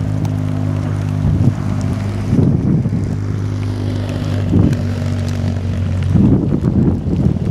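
GWR Large Prairie 2-6-2T tank locomotive 5199 running slowly at a distance, under a steady low hum, with irregular gusts of wind buffeting the microphone.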